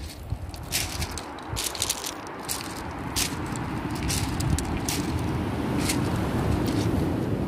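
Footsteps crunching over a beach of smooth pebbles, with stones clicking sharply underfoot at an irregular pace. A steady low rumble runs underneath.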